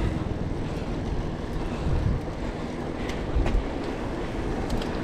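Wind rushing over the microphone of a moving mountain bike's camera, mixed with mountain bike tyres rolling on a concrete road. A few light clicks come through about three seconds in and again near the end.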